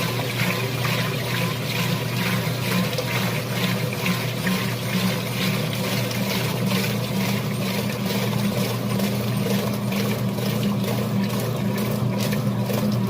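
Whirlpool top-load washing machine running its spin with a steady motor hum and water draining and splashing, a rapid clicking running through it and growing plainer near the end. This is the noise the owner ascribes to a failing transmission in the base.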